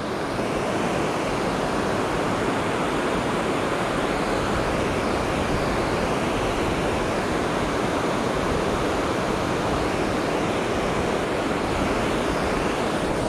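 Steady, even rush of river water pouring over a dam's falls.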